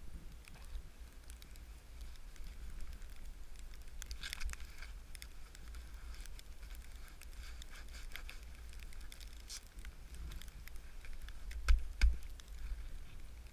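Skis sliding through fresh powder over a steady low rumble, with many small clicks and crackles of twigs and branches brushing past. Two sharp knocks come close together a couple of seconds before the end.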